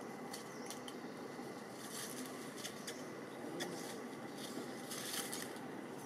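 Dry leaf litter crackling and rustling in short bursts as macaques move and shift on it, with louder patches about two seconds in and again near five seconds, over a faint steady outdoor background.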